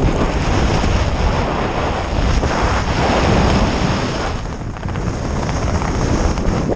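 Wind buffeting a helmet-mounted camera's microphone while descending under an open parachute: a loud, steady rush, heaviest in the low end and rising and falling slightly.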